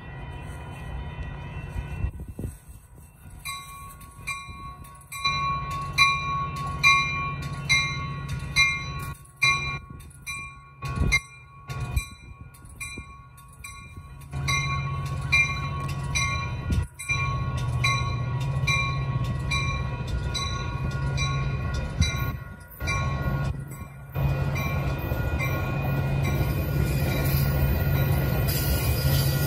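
Railroad grade-crossing warning bell ringing steadily, about one strike a second. A Metra commuter train's low rumble joins it partway through and grows louder near the end as the train comes through the crossing.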